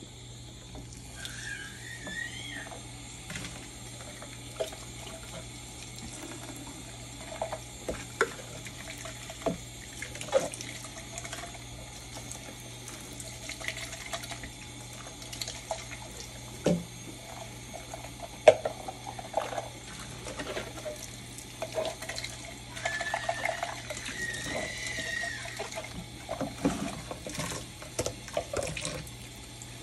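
Kitchen tap running into a stainless steel sink while plastic baby-bottle parts are rinsed and scrubbed by hand, with scattered knocks of plastic against the sink and bowl. The sharpest knock comes about two-thirds of the way through, and there are brief squeaks early on and again near the end.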